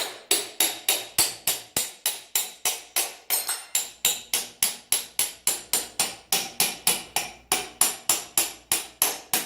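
Rapid, even metal-on-metal striking, about three or four blows a second, each with a short ring: the rear axle being knocked through the wheel hub with a makeshift striker in place of a hammer.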